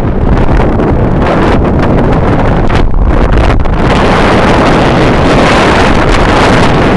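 Loud wind rushing and buffeting over the microphone of a moving vehicle, with the vehicle's running and road noise underneath.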